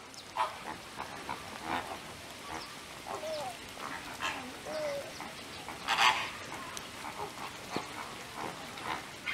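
A flock of flamingos calling with repeated short, goose-like honks, the loudest about six seconds in.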